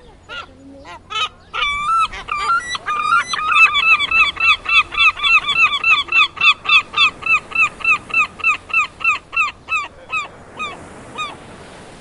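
A gull's long call: a run of loud, evenly repeated yelping notes, about three a second. It starts with a few uneven notes and thins out to a stop near the end.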